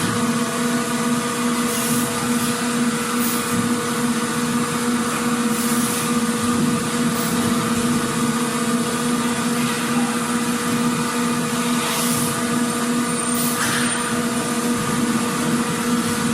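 Factory machinery ambience: a steady mechanical hum with a constant low drone, broken now and then by short bursts of hiss.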